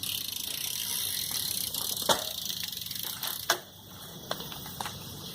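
BMX bike's rear hub ratcheting rapidly as it rolls, with a sharp clack about two seconds in and a louder impact about three and a half seconds in, after which the ticking stops.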